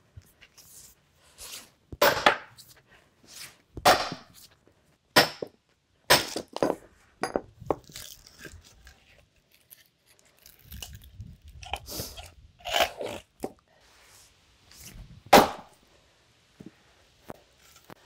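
A sledgehammer striking the back of an axe driven into a block of silver maple to split it: about eight sharp whacks in two bursts, with the wood split apart by hand in between.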